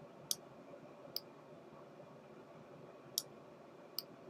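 Four sharp computer mouse clicks at uneven intervals, heard faintly against quiet room tone as on-screen elements are selected and dragged.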